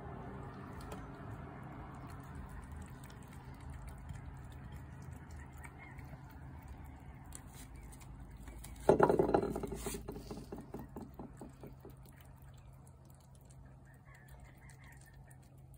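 Cats eating wet cat food off plates, with faint chewing and lapping over a steady low hum. About nine seconds in, a sudden loud sound starts and fades over a couple of seconds.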